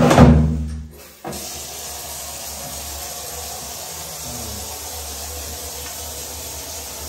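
A short loud sound at the very start, then from about a second in a wall tap runs a steady stream of water into a plastic basin, filling it.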